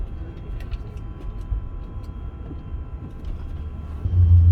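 Cabin noise of an Airbus A380 airliner taxiing: a steady low rumble with a faint even hum and a few light ticks. Near the end, a much louder low drone sets in suddenly.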